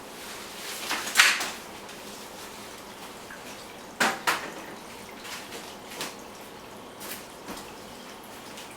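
Joovy Scooter stroller's folded chassis being unfolded: a few separate clicks and clatters from its frame and hinges, the loudest about a second in and another about four seconds in.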